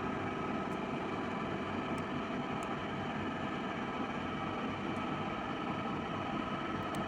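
Steady background hum and hiss of machinery, with a few faint short ticks scattered through it.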